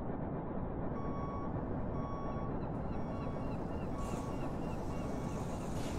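A vehicle's reversing alarm beeps about once a second, each beep lasting about half a second, over a steady low rumble of vehicles and machinery.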